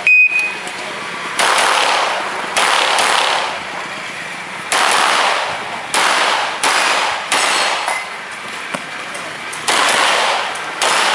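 An electronic shot timer gives one short high beep. About eight handgun shots follow at irregular spacing, some in pairs about half a second apart, each with a short echoing tail: an IPSC stage being shot after the start signal.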